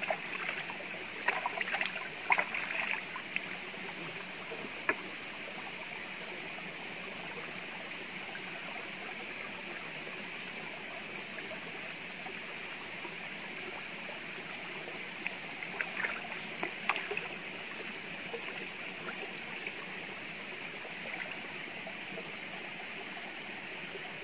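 Shallow rocky stream running steadily, with short splashes of hands and meat being rinsed in the water in two bursts, about two seconds in and again just past the middle.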